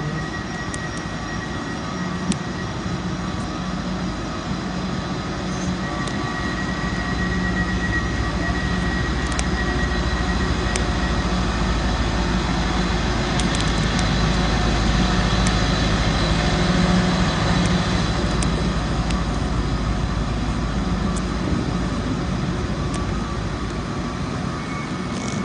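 Class 755 train running at the platform: a steady machinery hum with a low drone, growing louder through the middle and easing off towards the end, with a few faint clicks.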